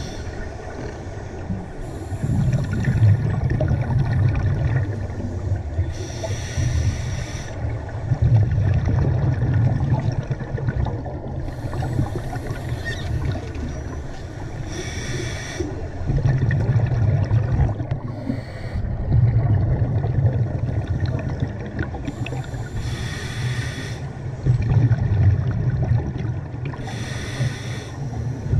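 Scuba diver breathing through a regulator underwater: a short hiss of each inhale, then a longer low rumble of exhaled bubbles, some six breaths in a row.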